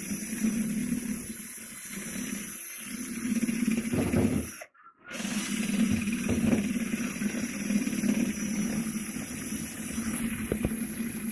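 Electric drill with a beater attachment running steadily while it churns pumpkin pulp and seeds inside the pumpkin. It cuts out for about half a second near the middle, then starts again.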